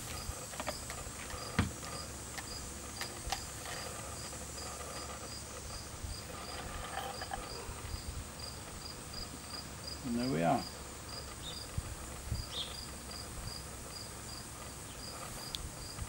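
Cricket chirping steadily, short high chirps about three a second. There are a few light knocks from plastic parts being handled, and a brief rising voice-like sound about ten seconds in.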